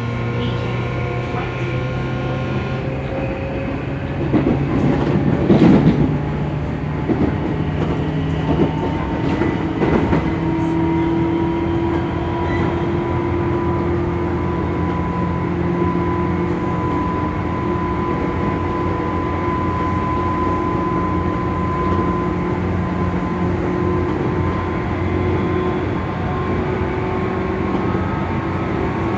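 Tobu 9000-series chopper-controlled electric train car running, its traction equipment giving several steady whining tones, one high and two low, with a noise the rider found abnormal. There is a clatter about five seconds in and a shorter knock around ten seconds.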